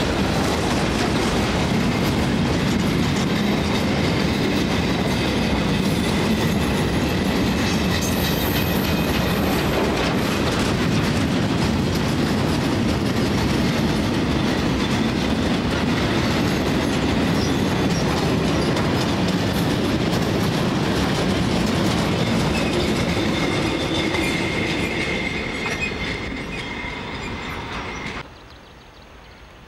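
Long freight train of covered goods wagons rolling past on a curve: a steady rumble with wheels clattering over the rail joints and thin squealing tones from the wheels. It eases off for the last few seconds and then cuts off abruptly.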